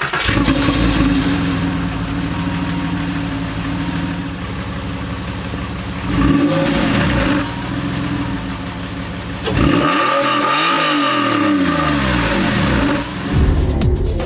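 Porsche 911 (996) flat-six engine idling just after a start, heard at the exhaust, blipped briefly about six seconds in and revved harder about nine and a half seconds in before the revs fall back to idle.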